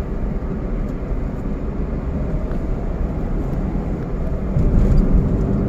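Steady low road and engine noise inside a moving car's cabin, growing a little louder near the end.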